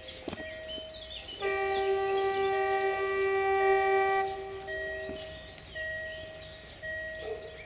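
Locomotive horn sounding one long blast of about three seconds, a chord of several notes, starting about a second and a half in. Throughout, a quieter two-note electronic tone beeps on and off about once a second.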